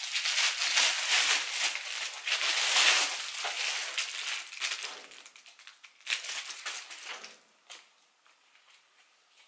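Thin clear plastic packaging crinkling and crackling as a belt is unwrapped from it. The crackling is dense for the first five seconds or so, then thins to a few scattered crackles and stops about eight seconds in.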